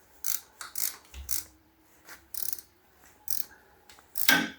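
Socket ratchet clicking in short, irregular strokes while tightening the oil filter housing's centre bolt on a Massey Ferguson 35X, with one louder, longer stroke near the end.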